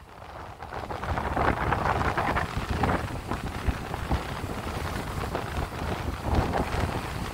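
Choppy sea waves washing and splashing at the water's edge in uneven surges, with wind rumbling on the microphone underneath.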